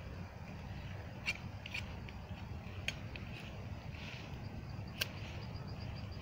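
A knife blade whittling a thin wooden stick into a trap trigger, with a few sharp snicks of the blade cutting the wood at irregular times, over a steady low rumble.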